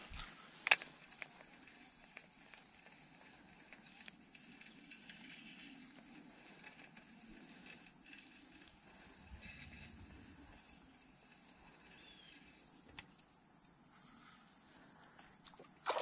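Quiet outdoor creek-side background with a faint steady high hiss, broken by one sharp click under a second in and a fainter click about 13 seconds in.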